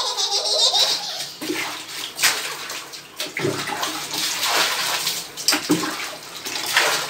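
Water sloshing and splashing in a series of short splashes: a plastic mug dipping into and lifting water from a plastic bucket, and a small child standing in a shallow plastic tub of water.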